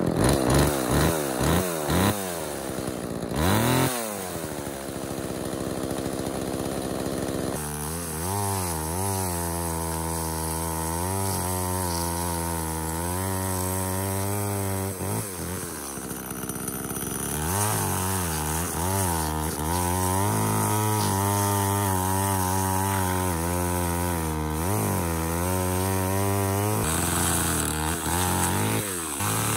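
Homelite Super 2 two-stroke chainsaw running after a carburetor rebuild. Its throttle is blipped several times at first, then it cuts through a log, the engine note wavering as the bar bites and eases off.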